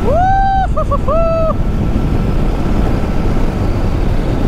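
Steady rush of wind noise on the microphone with a Bajaj Dominar 400's single-cylinder engine running as the motorcycle cruises at road speed. In the first second and a half a short high-pitched tone sounds: it rises and holds, blips twice quickly, then holds again.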